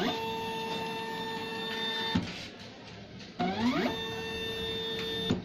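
Redsail vinyl plot cutter's carriage motor driving the cutting head along its rail: a steady whine that stops with a knock about two seconds in. It then starts again, rising quickly in pitch, runs steadily for about two more seconds and stops with another knock.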